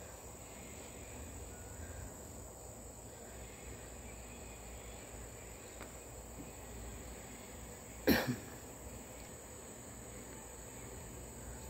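Quiet outdoor ambience: a steady high drone of insects over a low background hum, broken about eight seconds in by a sharp double knock.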